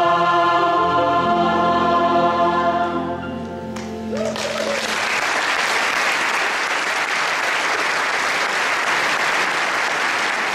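A large choir with instrumental accompaniment holds the final chord of a song, which ends about four seconds in. The audience then breaks into steady applause.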